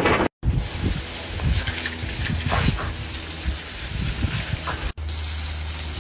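Hose spray hissing steadily onto wet concrete while a dog snarls and barks in short snaps as it bites at the stream of water.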